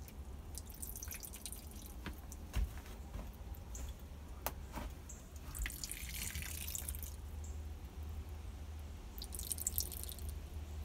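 Water dripping: a few sharp drips at irregular intervals, with brief hissing patches about halfway through and near the end.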